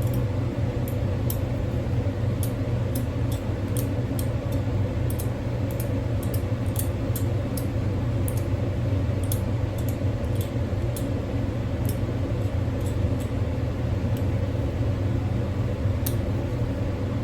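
Steady low machine hum, with many light, sharp clicks scattered through it.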